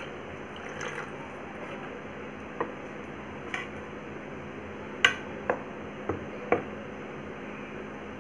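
Steel spoon stirring varai (barnyard millet) dosa batter in a steel bowl while water is poured in to thin it, with several sharp clinks of spoon on bowl, the loudest about five seconds in.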